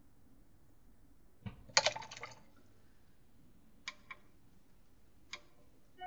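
Paintbrush rinsed and knocked against a water pot: a short burst of swishing and clinking about a second and a half in, then a few light single taps.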